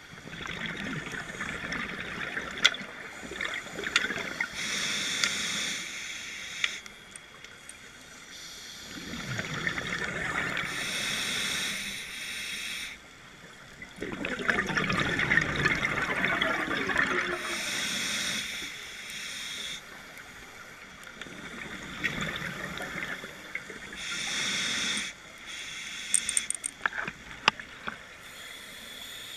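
Scuba diver breathing on a regulator underwater: a hissing inhale alternates with a longer bubbling, gurgling exhale, about four breaths in all, with a few sharp clicks near the end.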